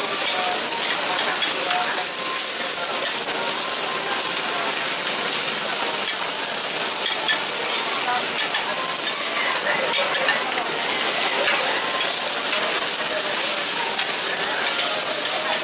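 Oyster omelettes frying on a hot flat griddle with a steady sizzle, while a metal spatula scrapes and taps against the pan as they are pressed and flipped. The scraping and tapping is busiest in the middle stretch.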